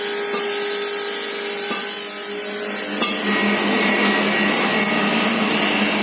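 Automatic sachet packing machine running with a steady mechanical whir and hiss; about three seconds in the sound shifts, the high hiss dropping away and a steadier hum with a higher whine taking over.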